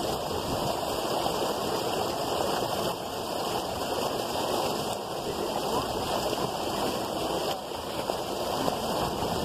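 Steady rushing noise of water, even and unbroken, with no separate splashes or knocks standing out.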